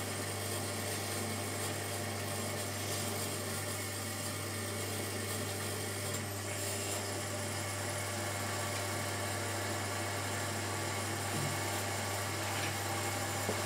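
Shimpo RK10 electric potter's wheel running at a constant speed: a steady motor hum with an even hiss.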